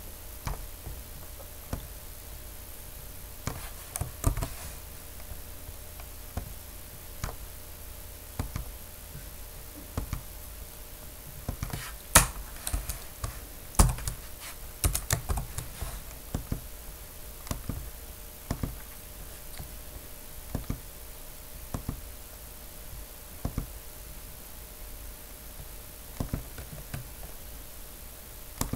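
Irregular computer keyboard keystrokes and mouse clicks, with a quicker run of louder clicks about twelve to sixteen seconds in, over a faint steady hum.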